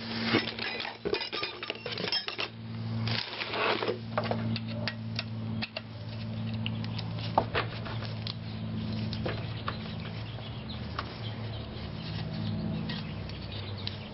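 A screwdriver working a screw out of an alternator's rear cover, with sharp metal clicks and clinks as the tool and alternator housing are handled, busiest in the first few seconds. A steady low hum runs underneath.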